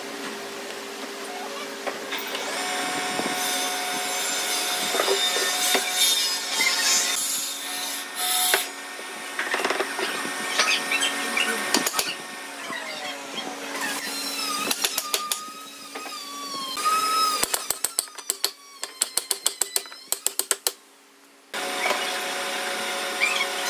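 Pine workpieces being handled and knocked against a wooden workbench over a steady hum, with a few squeaks and then a quick run of sharp clicks, about five a second, near the end.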